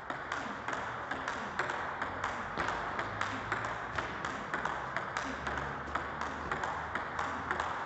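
Table tennis rally: a celluloid-type ball clicking off the paddles and bouncing on the table in a steady back-and-forth, about three sharp taps a second. One of the bats is faced with DHS Hurricane 8 soft rubber.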